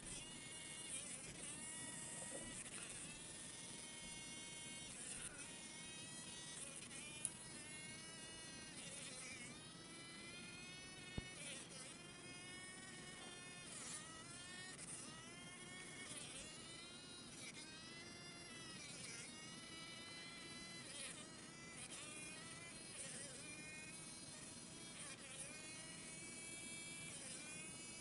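A fly caught in a spider's web buzzing its wings in struggling bursts, the buzz rising and falling in pitch over and over, about once every second or two. Two brief sharp clicks stand out partway through.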